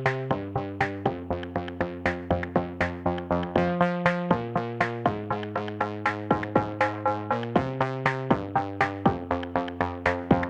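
Upbeat electronic background music: synthesizer chords over a steady drum-machine beat.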